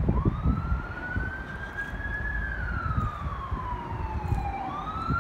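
Emergency vehicle siren in a wail pattern: it rises in pitch for about two seconds, falls slowly for about two more, then starts climbing again near the end. Wind buffets the microphone underneath.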